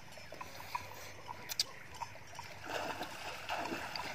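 Cooked clams being picked from a steel pot and eaten: scattered clicks and scrapes of clam shells over a steady watery hiss.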